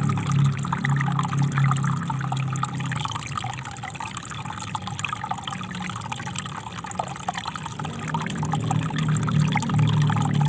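Small river flowing, a steady rush of water with many small burbles and trickles. A deeper rumble underneath eases off in the middle and comes back near the end.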